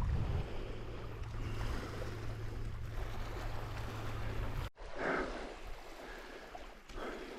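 A boat's engine running steadily with a low hum under wind and water noise, cutting off abruptly about four and a half seconds in; after that, only quieter wind and water lapping.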